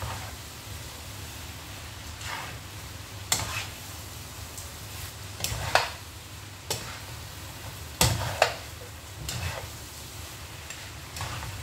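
Metal and plastic spatulas scraping and clacking against a non-stick wok as oiled noodles are tossed and stirred for mi goreng, over a low sizzle. The sharp clacks come every second or two, loudest about eight seconds in.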